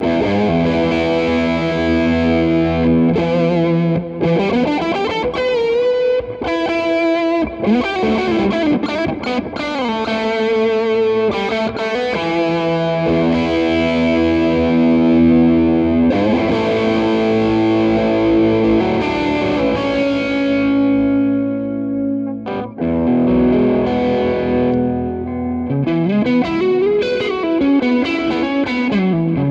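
Electric guitar played through a distortion pedal: driven, sustained chords and single-note lines with sliding notes, and a short break about 22 seconds in.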